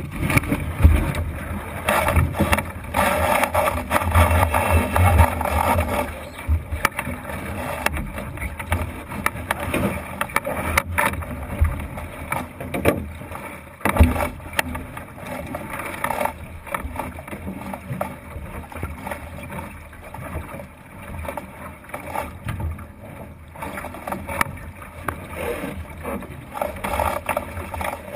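Water rushing and splashing along the hull of a Thistle sailing dinghy under way, uneven in level and louder for a few seconds near the start, with a few sharp knocks, the loudest about 14 seconds in.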